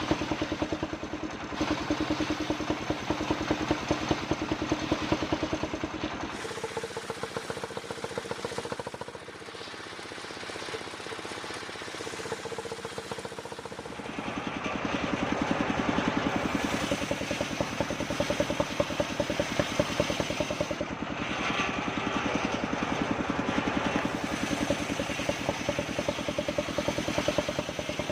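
Engine of a homemade circular sawmill running steadily with a rapid pulsing beat. It drops quieter about a quarter of the way in and comes back louder about halfway through.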